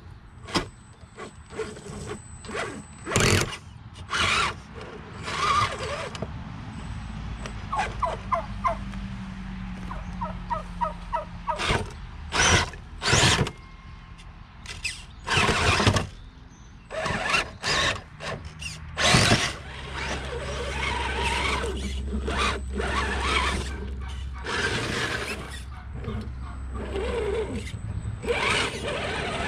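Redcat Gen8 RC rock crawler working over rocks: its electric motor and geared drivetrain whining in short, irregular bursts as it is throttled on and off, with tyres and chassis scraping and knocking against stone.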